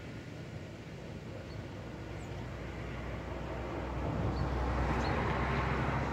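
A car driving by on the road, its rumble and tyre noise swelling from about three seconds in and loudest near the end. A few faint, short high chirps sound now and then.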